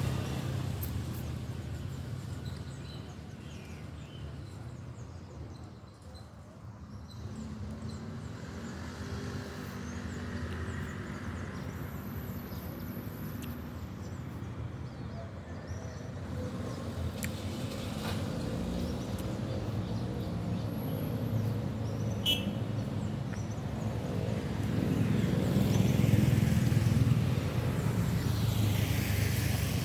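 Motor vehicle engine running, a low hum that fades, then grows louder again and is loudest near the end.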